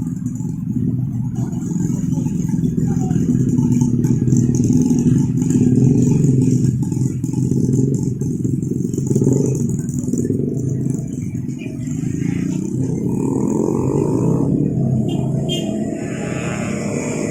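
Road traffic at a level crossing: car and motorcycle engines running and pulling away in a steady rumble.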